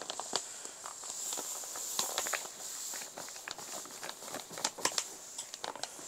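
Sand substrate pouring from a bag into a clear plastic tub, with many small crackles and crinkles from the bag as it is tipped and shaken.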